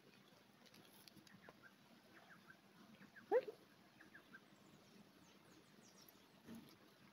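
Faint animal calls: scattered soft chirps and one short, louder rising call about three seconds in.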